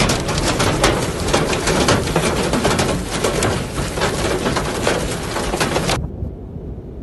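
Hail striking a car's roof and windshield, heard from inside the cabin as a dense, rapid clatter of hits. It cuts off suddenly about six seconds in, leaving a much quieter low rumble of wind.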